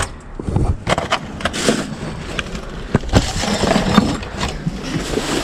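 Plastic bags and cardboard boxes rustling and crinkling as a gloved hand digs through trash, with scattered sharp knocks and clicks.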